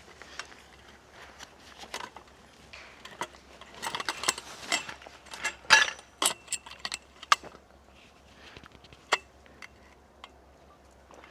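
Small hard objects being handled: a run of clicks, taps and clinks, busiest from about four to seven seconds in, then a few single sharp clicks.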